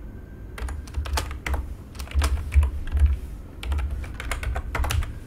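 Typing on a computer keyboard: a run of irregular keystrokes.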